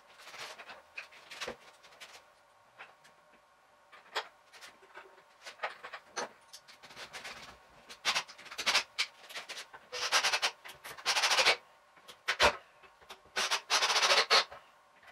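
Hand work on a wooden bench: scattered knocks and clicks of tools and timber being handled, then two harsh, rasping bursts of about a second and a half each, one about ten seconds in and one near the end.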